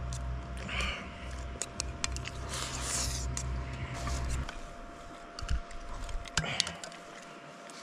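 Metal spoon clinking and scraping in a stainless steel bowl as a person eats fried rice, with short eating noises. A low rumble stops about halfway through, and a few sharper clicks near the end come as a thermos flask is picked up.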